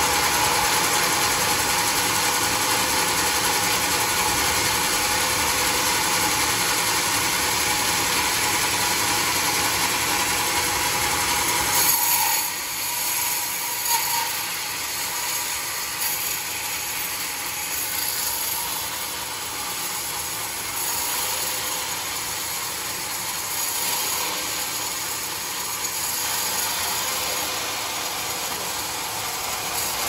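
Large vertical band sawmill running and sawing a teak log, a steady mechanical noise. About twelve seconds in the sound drops and thins, with a few short knocks.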